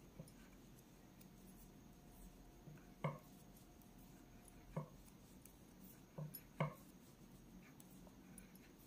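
Near silence broken by a few soft clicks of knitting needles tapping together as stitches are worked, about four light taps in the second half.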